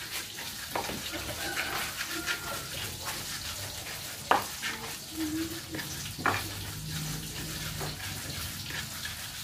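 A pestle grinding and crushing sambal in a shallow cobek mortar: a wet scraping and squishing, with a few sharper knocks of the pestle against the mortar.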